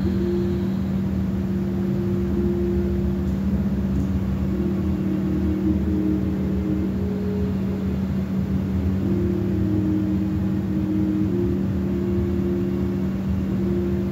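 Slow ambient drone music: a steady low hum held under sustained higher notes that slowly shift and change every few seconds.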